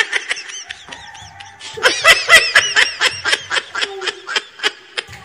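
Snickering laughter: a quick run of short, pitched laughs, louder from about two seconds in.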